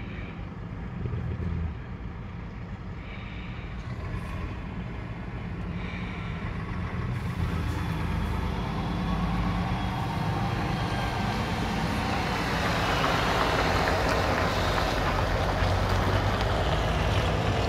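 Heavy truck with a loaded four-axle semi-trailer driving past close by, heard from inside a car: a low diesel engine rumble and road noise that grow louder as it comes alongside.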